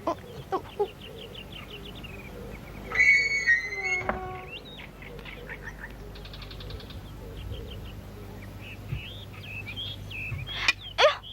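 Birds chirping and trilling in short, high calls, with a louder, longer call about three seconds in and a fast run of trills around the middle.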